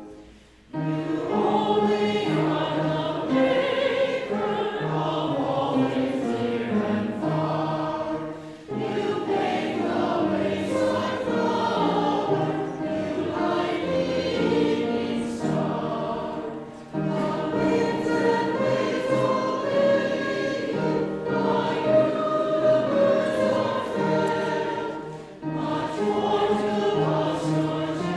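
A choir singing a hymn, in long phrases with brief pauses between them about every eight and a half seconds.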